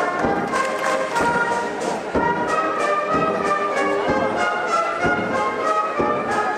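Brass band music with held notes over a steady drum beat about twice a second.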